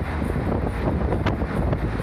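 A route bus running along the highway, heard from on board: a steady low rumble with a rushing noise and a couple of short rattles.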